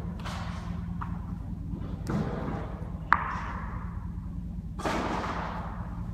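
A few dull thumps and one sharp click about three seconds in, over a steady low hum.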